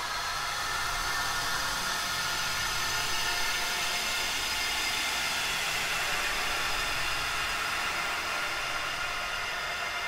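Ghostly 'wails of the dead' Halloween sound effect: a steady, dense hiss-like wash with many faint drawn-out tones layered through it, holding an even level.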